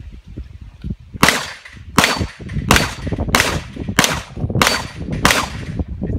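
Seven pistol shots fired in a steady string, evenly spaced about two-thirds of a second apart, starting about a second in.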